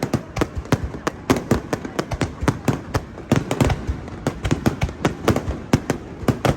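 Fireworks display: a rapid, irregular run of sharp cracks and bangs, several a second, with some deeper booms about halfway through.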